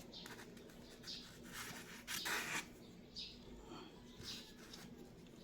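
Scraping and rubbing as the hardened clay mold is worked off the glue-and-baking-soda repair on a car door-handle cover, loudest around two seconds in. A bird chirps in the background about once a second.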